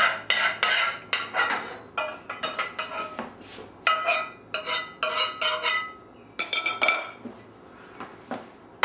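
A metal utensil clanking and scraping against a frying pan on a stove: quick ringing strikes, about three a second, with a short pause about six seconds in and a few fainter knocks near the end.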